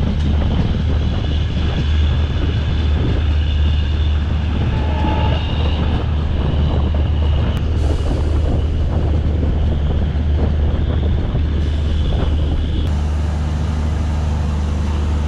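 Passenger train running along the track, heard from inside the Vistadome coach as a steady, loud low rumble.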